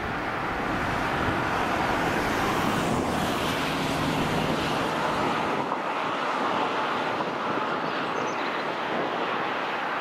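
Road traffic going past, a steady rushing of tyres and engines. It swells over the first couple of seconds and eases a little in the second half.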